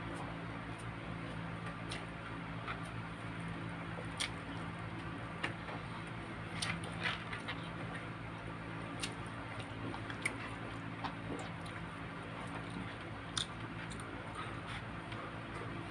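Close-up eating sounds: chewing and lip smacks while roast chicken and rice are eaten by hand, with scattered short clicks spread through, over a steady low hum.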